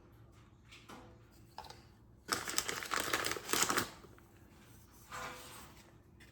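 Baking soda being shaken out of its container onto a bead of super glue: a fast, dense rattle of tiny clicks lasting about a second and a half, then a shorter, softer one near the end.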